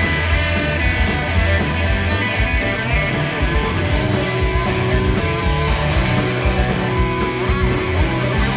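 Hard rock band playing live: distorted electric guitar over bass and a full drum kit with crashing cymbals, with no singing.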